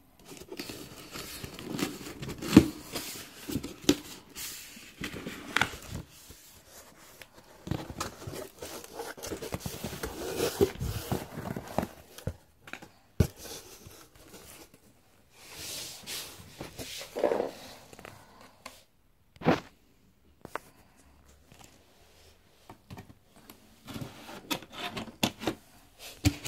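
Packaging being handled and opened by hand: irregular tearing, crinkling and scraping of box and wrapping, broken by sharp clicks and knocks.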